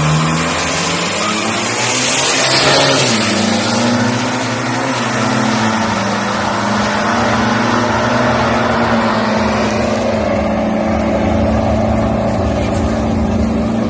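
Two turbo-diesel SUVs, one a Toyota Fortuner, launching off a drag-strip start line at high revs. The engines and turbos rise to a rushing surge about two to three seconds in, then settle into a steadier, level-pitched drone.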